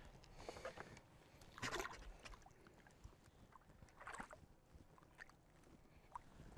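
Near silence, broken by two faint, brief noises about two and a half seconds apart.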